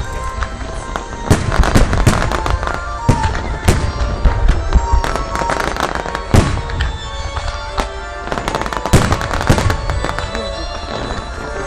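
Fireworks going off in a dense, irregular string of sharp bangs, often less than a second apart, with music playing alongside.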